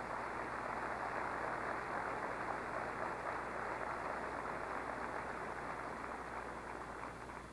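An audience of delegates applauding, steady clapping that thins out near the end.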